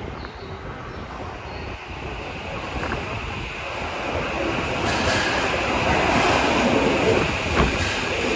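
Subway train running along an underground platform, its rumble and rail noise growing steadily louder, with a faint high squeal of wheels joining in partway through.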